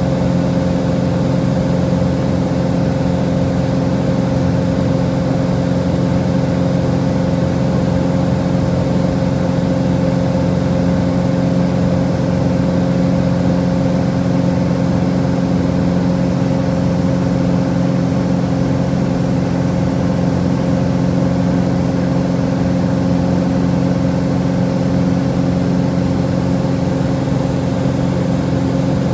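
Small private plane's engine droning steadily in flight, heard inside the cabin: an even hum with several fixed tones that does not change.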